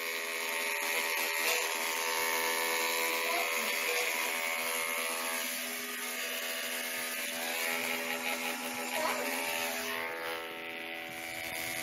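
Corded electric hair clippers running with a steady buzz during a home haircut.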